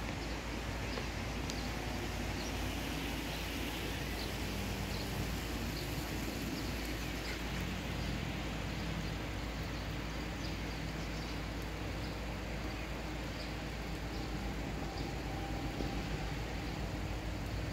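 Steady outdoor background noise with a low rumble, and faint short bird chirps now and then.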